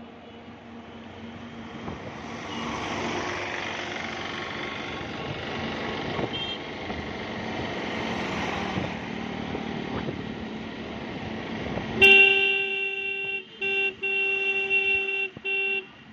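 Wind and road noise from riding a motorcycle through traffic, with a short horn toot about six seconds in. About twelve seconds in a vehicle horn sounds loudly in four blasts, the first the longest.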